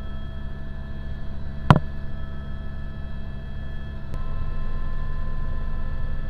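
Helicopter cabin noise in flight: a steady low rotor and engine rumble with a constant turbine whine. One sharp click about a second and a half in, and the noise gets slightly louder about four seconds in.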